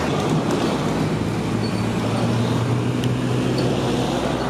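Engine of a road-works machine running steadily, mixed with passing traffic. A few light clicks stand out above the hum.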